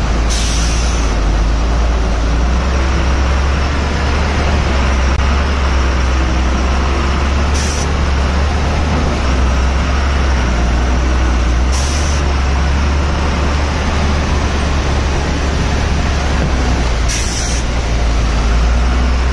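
Truck's diesel engine running with a steady low rumble, with four short hisses cutting through it.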